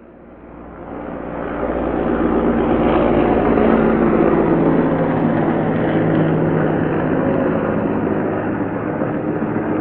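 Heavy transport helicopter in flight: the rotor and engine sound swells in from silence over the first couple of seconds, then holds steady and loud with a deep rumble and a steady low drone, easing off slightly near the end.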